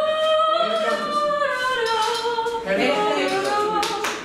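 A woman's voice singing unaccompanied, holding one long high note that slowly sinks in pitch. About two and a half seconds in it breaks into shorter, changing vocal phrases.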